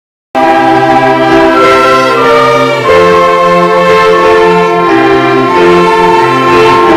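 A children's chamber orchestra of violins, cellos, flute and piano plays a slow piece in sustained chords, mixed from separate home recordings into one ensemble. The music starts abruptly out of silence about a third of a second in.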